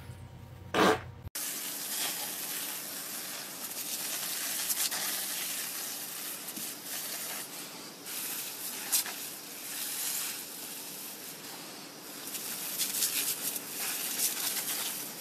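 A cat's short, loud fart about a second in. Then a garden hose spraying water in a steady hiss that rises and falls in level.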